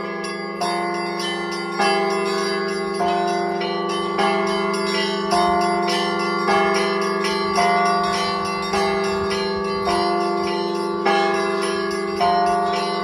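Russian Orthodox church bells rung by a bell-ringer in a continuous peal: a steady beat of strikes a little slower than one a second over a lasting ringing hum, with the higher bells changing pattern from stroke to stroke.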